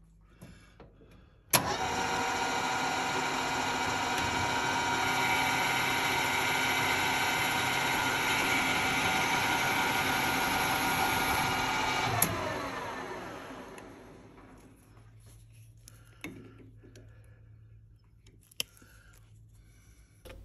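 Metal lathe switched on with a click, running steadily with a many-toned whine while a carbide insert tool turns down a round bar. About 12 seconds in it is switched off with a click and winds down, its pitch falling away over about two seconds, followed by a few faint clicks.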